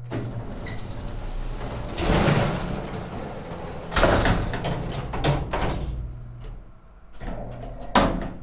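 Elevator doors sliding and clunking over a steady low hum from the elevator's machinery, with several sharp knocks, the sharpest near the end.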